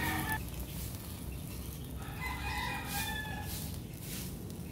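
A rooster crowing in the background: the end of one crow at the very start, then a longer crow lasting about a second and a half from about two seconds in.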